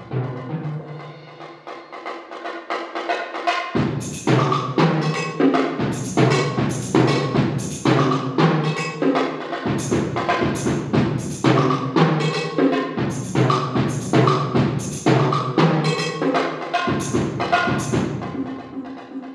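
Solo multi-percussion playing on concert toms and a large bass drum struck with sticks in a fast, driving rhythm. It is softer for the first few seconds, then grows louder about four seconds in, with deep drum hits and sharp, bright accents about twice a second.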